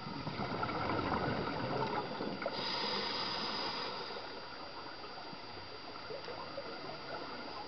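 Scuba divers' exhaust bubbles gurgling and crackling, recorded underwater, busiest in the first couple of seconds and then settling to a steadier bubbling hiss.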